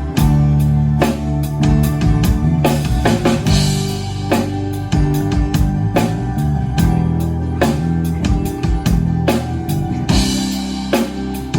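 A band playing live, an instrumental passage with no singing: a drum kit keeps a steady beat under sustained guitar chords.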